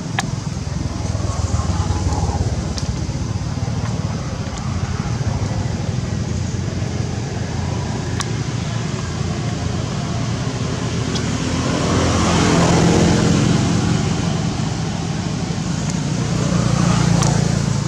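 Steady low rumble of motor traffic, with one engine swelling past about twelve seconds in and fading again; a few sharp clicks.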